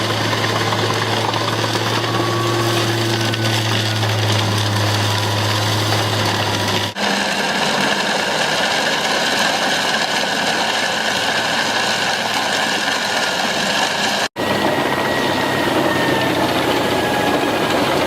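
Heavy forestry machinery running loudly, its engine and the working noise steady, in three separate stretches that break off abruptly about 7 and 14 seconds in; the first stretch carries a strong low engine hum.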